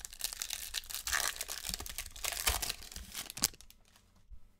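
Baseball card pack wrapper being torn open and crinkled by hand, a dense run of crackling ending in one sharp crackle about three and a half seconds in, then much quieter.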